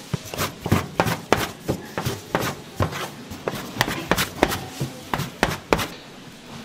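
Plastic dough scraper chopping through dough and knocking on a metal worktable: a quick, irregular run of sharp taps, about two or three a second, stopping near the end.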